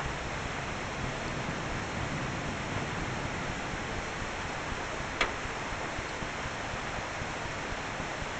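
Steady rain falling during a thunderstorm, an even hiss, with one sharp click about five seconds in.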